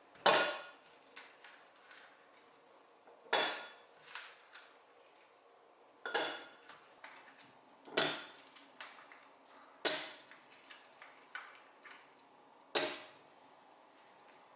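Cutlery clinking against dishes: six sharp, ringing clinks about every two to three seconds, with lighter taps and clicks between them.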